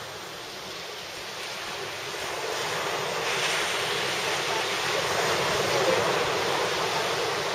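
Surf breaking and washing up a sandy beach, a steady rushing noise that swells louder about two to three seconds in.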